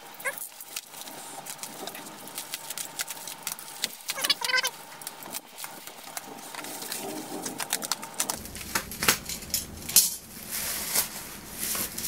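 Plastic parcel wrapping being pulled and torn open by hand: a run of irregular crinkles and crackles, with a short squeak about four seconds in.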